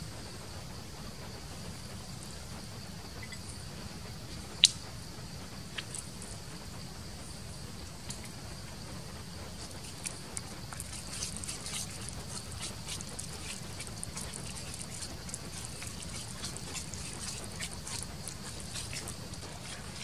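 Wooden spoon stirring and mashing a wet minced paste in a bowl: soft wet squelches and small scraping clicks, coming thick and fast from about halfway. A single sharp click sounds about a quarter of the way in, over a steady high-pitched background hum.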